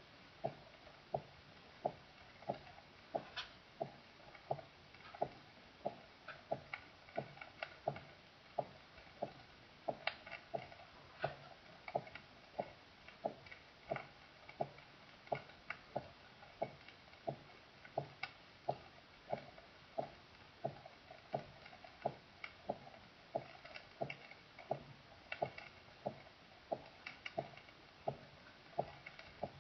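Heart sounds heard through a stethoscope: a steady, regular lub-dub rhythm of paired beats, a little over one heartbeat a second.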